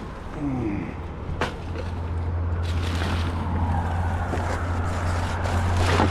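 A motor vehicle engine drones steadily and slowly grows louder, with a few sharp knocks.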